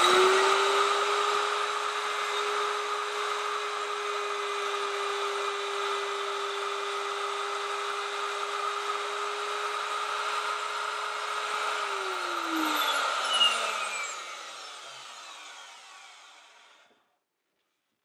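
Router on a router lathe running at a steady high pitch while fluting a spalted beech blank. About twelve seconds in it is switched off and winds down with a falling whine, with a brief knock along the way, and stops a few seconds later.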